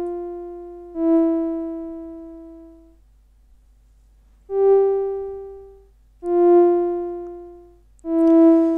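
LushOne modular analogue synthesizer playing single notes, its oscillators passing through a filter and a VCA shaped by an ADSR envelope. Five notes at much the same pitch, the middle one slightly higher, each swelling in quickly and fading over a second or two. The VCA offset is turned down so that the sound dies away to silence between notes.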